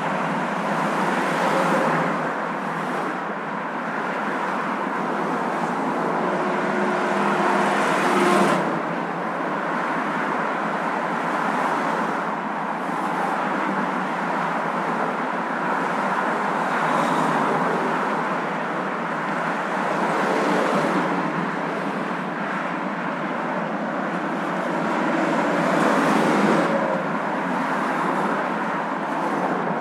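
Steady road traffic noise: a continuous rush of tyres and engines that swells every few seconds, loudest about eight seconds in.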